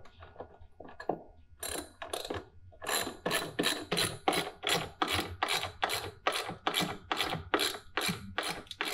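Socket ratchet wrench clicking as it tightens a nut on a 3/8-inch bolt through a wooden 2x4 leg. A few soft, uneven clicks at first, then from about two seconds in a steady run of short ratcheting strokes, about three a second.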